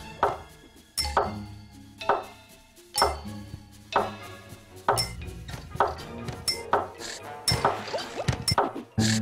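Music with a steady beat of sharp clinking strikes about once a second, each ringing on briefly, over held pitched notes.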